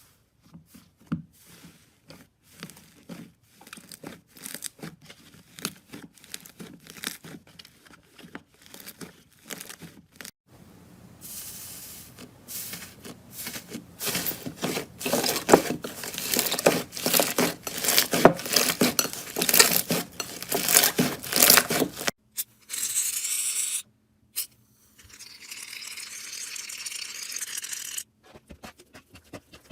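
Slime being squeezed and pulled by hand, in several short takes. It starts with a run of sticky clicks and pops. Then comes a denser, louder crackling, like tearing, and later a steadier crinkly hiss with short breaks.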